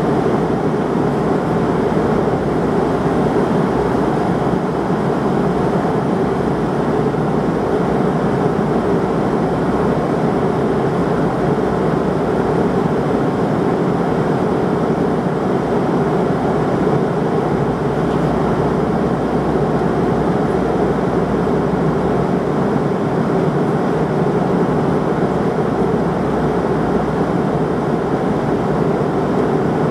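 Steady cabin roar of a McDonnell Douglas MD-88 airliner cruising at high altitude, heard from inside the cabin: the airflow and the rear-mounted Pratt & Whitney JT8D turbofans make one even noise with a low hum running under it.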